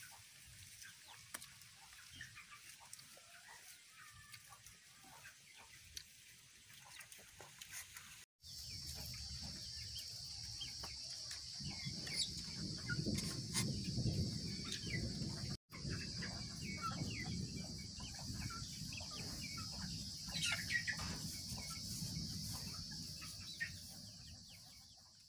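Chickens clucking now and then, with short scattered calls. A third of the way in a steady high-pitched hiss and a low rumble come in under them. The sound drops out briefly twice.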